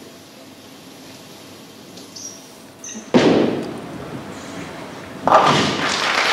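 Bowling ball hitting the lane about three seconds in, the loudest sound here, then rolling down the lane and striking the pins about two seconds later with a noisy crash.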